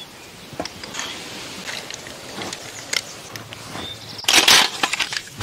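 Snail shells being cracked open by hand: scattered small crunches and clicks, with a short louder burst of noise near the end.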